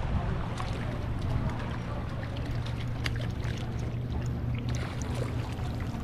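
Hooked small fish splashing at the water's surface beside a boat as it is played in on a spinning rod, in light scattered splashes over a steady low hum.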